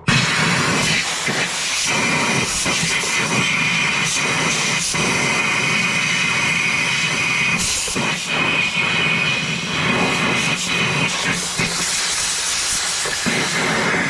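Compressed air hissing steadily as it is blown through a snowblower's fuel tank to clear it out. It starts abruptly and holds with small flutters.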